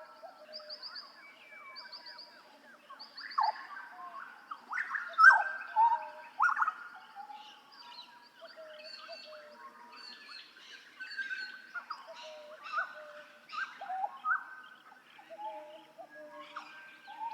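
Hooded butcherbird singing a varied run of short whistled notes, some sliding down in pitch and some held level, with the loudest phrases about five to seven seconds in.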